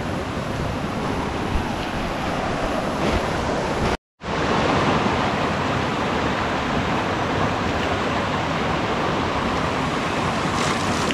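A forest stream running over rocks: a steady wash of rushing water, with a momentary dropout to silence about four seconds in.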